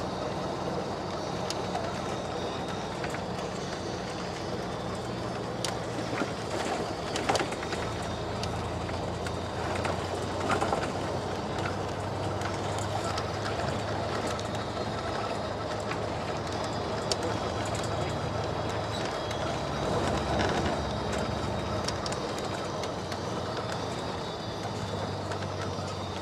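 Interior noise of a moving road vehicle: a steady engine drone with a low hum that shifts in pitch several times, over road noise, with a few brief rattles.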